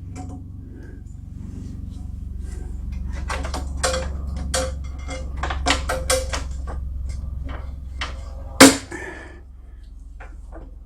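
Plastic zip ties being fed through drilled holes in a snow blower's sheet-metal cable bracket: a string of light clicks and knocks, with one sharper knock near the end, over a low steady hum.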